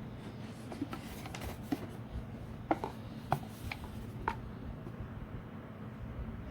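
Small objects being handled close by: soft rubbing with scattered sharp clicks, a few of them clearer between about the third and fifth second, over a low steady hum.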